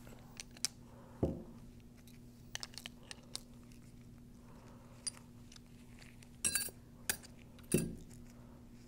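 Metal pump parts being handled and set down on a workbench: scattered light clicks and clinks with a few heavier knocks, the loudest about a second in and again in the last few seconds, over a steady low hum.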